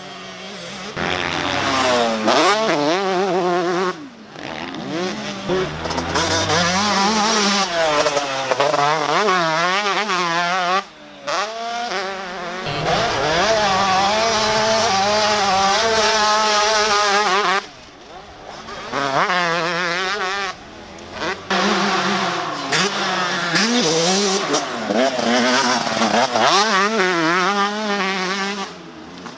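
Two-stroke motocross dirt bike engine revving hard, its pitch climbing and falling repeatedly as it runs through the gears, with several sudden breaks where the sound drops away or changes.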